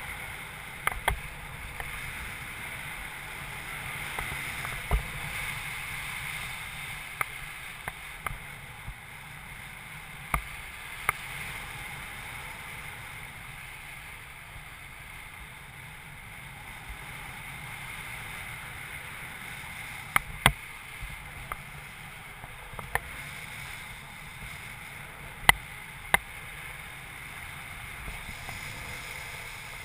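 Wind rushing over the microphone of a camera mounted on a paraglider pilot in flight: a steady whoosh, with scattered sharp clicks and taps, the loudest about 20 and 25 seconds in.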